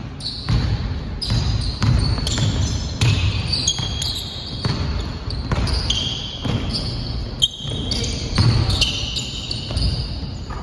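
Basketball bouncing on a hardwood gym floor, a knock about every half second to second, with sneakers squeaking on the floor in short high chirps.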